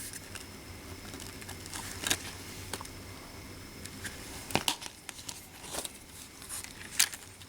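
Plastic Blu-ray case and discs being handled: scattered sharp clicks and light crinkling, with a loud click about two seconds in and several more in the second half.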